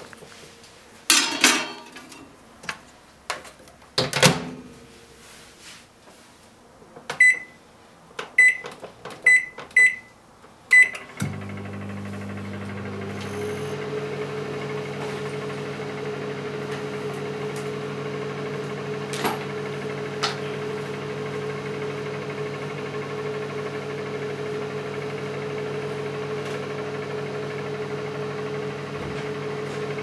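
Daewoo microwave oven: a few knocks and a thump as its door is handled and shut, then five short beeps as the controls are pressed. About eleven seconds in it starts cooking with a steady electrical hum that runs on while its timer counts down.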